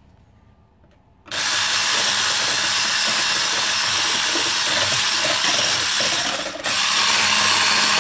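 Electric hand mixer switched on about a second in and running steadily, its twin beaters whisking eggs and sugar in a plastic bowl to froth them. It dips briefly near the end, then runs on.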